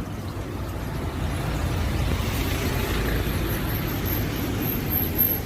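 Sharp ESX 115 washing machine filling its tub with water toward the high level setting: a steady rushing rumble. A faint high whine comes in about two seconds in.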